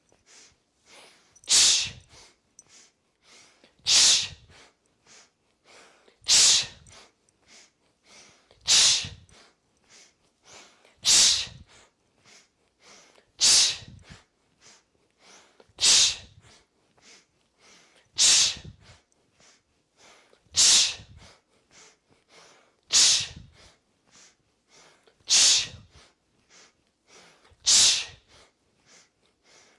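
A person doing three-part pranavayu breathing: a forceful breath out through the mouth about every two and a half seconds, with shorter, quieter sniffed inhales through the nose between them.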